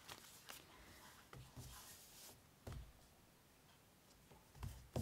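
Faint rustling of paper and cotton fabric being handled, with a few soft taps, the loudest near the end.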